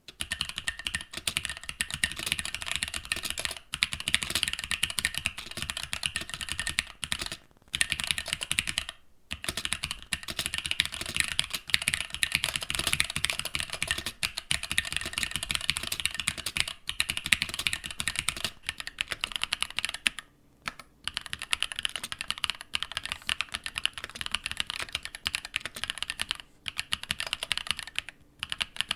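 Fast, continuous typing on a mechanical keyboard fitted with linear switches, with a few short pauses. The lower thock of the keystrokes changes about two-thirds of the way through.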